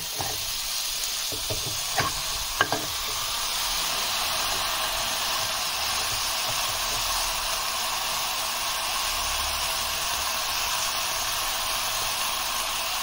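Butter and spice paste sizzling steadily in a karahi as washed fenugreek and spinach leaves are heaped into it by hand. A few light clicks come about two seconds in.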